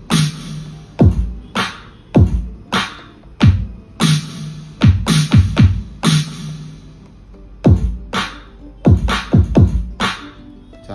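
Roland SPD-SX Pro sampling pad struck with a drumstick, firing electronic drum samples: deep kicks that drop in pitch and sharp snare-type hits in an uneven pattern. About two-thirds of the way in, a new kit is selected and the hits change character at once, with no lag in the switch.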